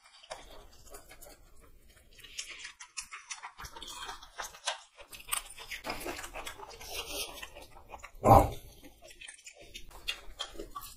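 Close-up mouth sounds of eating chow mein noodles and an egg roll: irregular wet chewing, smacking and slurping. About eight seconds in there is one short, loud low sound.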